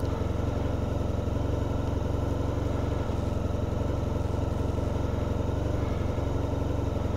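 Motorcycle engine idling steadily at an even pitch.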